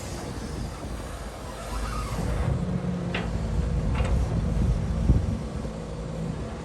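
Diesel engine of an excavator working while loading a dump truck: a steady low rumble whose engine note strengthens about two and a half seconds in, with three sharp knocks a second or so apart.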